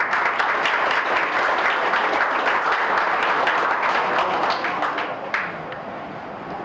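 Banquet audience applauding, starting right after the name is announced and dying away after about five seconds.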